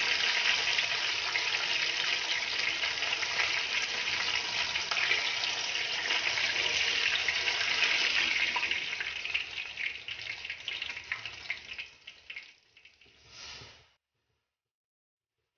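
Battered meat chops deep-frying in hot oil in a kadai: a dense crackling sizzle that thins out over the last few seconds and then cuts off.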